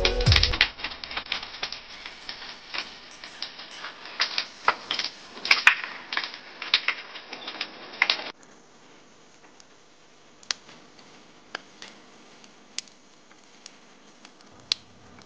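Campfire crackling: a dense run of snaps and pops for about eight seconds, then it cuts abruptly to a quieter stretch with only a few sharp, isolated pops.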